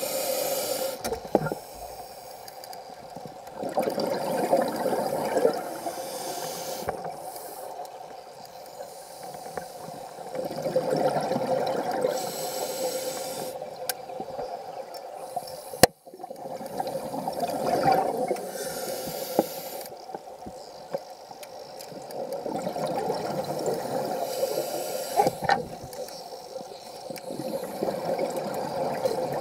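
Scuba diver breathing through a regulator underwater: a short hissing inhale followed by a longer swell of exhaled bubbles, five breaths in all. A single sharp click about halfway through.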